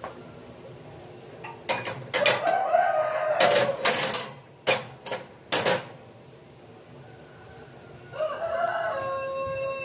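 A rooster crowing twice, a long pitched call about two seconds in and another near the end. Several sharp, loud clatters fall around the first crow.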